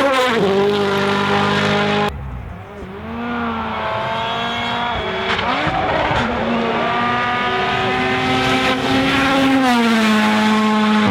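Rally1 cars' 1.6-litre turbocharged four-cylinder engines driven flat out, revs climbing and dropping through gear changes. There is a hard cut about two seconds in to another car, quieter at first and then building.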